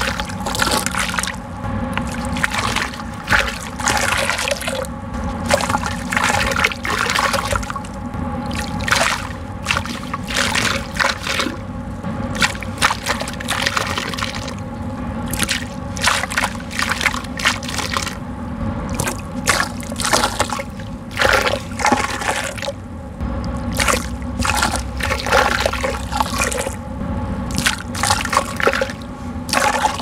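Loose dirt poured in a stream into a bucket of water, splashing and pattering as it hits the surface, in uneven surges.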